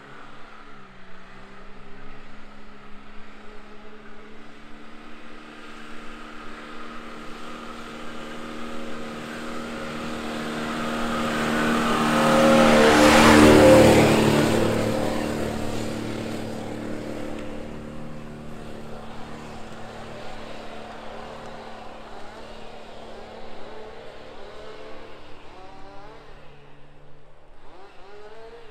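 A 4x4 SUV engine pulling uphill on a muddy, snowy track. It grows steadily louder as the vehicle approaches, is loudest as it passes about halfway through, then fades as it climbs away.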